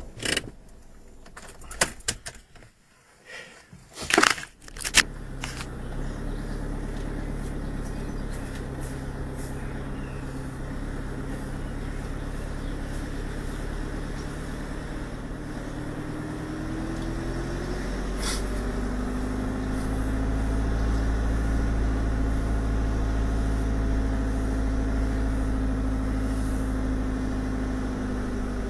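Motorhome engine running, heard from inside the cab through a dashcam. The engine note climbs and grows louder a little past halfway. A few sharp clicks and knocks come in the first few seconds, before the engine hum settles in.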